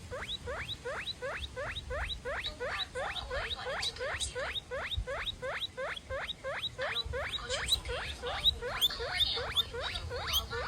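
Mouse squeaking sound effect: a long, even run of short rising squeaks, about three a second, over a low background rumble.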